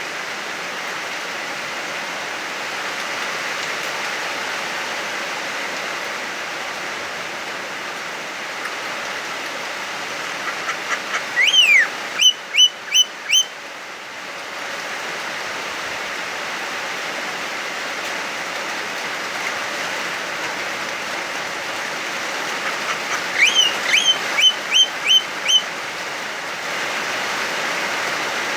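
Javan myna calling in two bouts some twelve seconds apart, each a quick run of short notes building into about four loud, sharp whistled notes. Steady hiss of heavy rain underneath.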